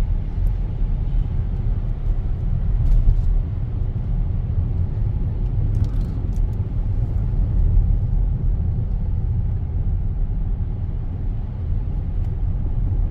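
Steady low rumble of a car driving on a snowy road, heard from inside the cabin: tyre and road noise, with a few faint clicks about three and six seconds in.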